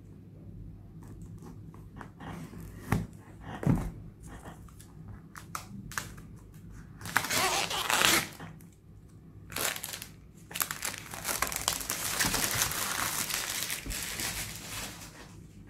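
Cardboard gimbal retail box being handled and its seal stickers peeled off: scratchy crinkling and tearing, with two knocks about three to four seconds in and longer stretches of peeling and rubbing in the second half.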